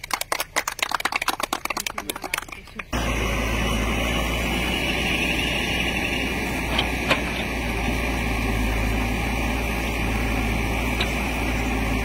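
People clapping for about three seconds, then the diesel engine of a Terex TLB 740S backhoe loader running steadily under load as the arm digs, with two short knocks near the middle.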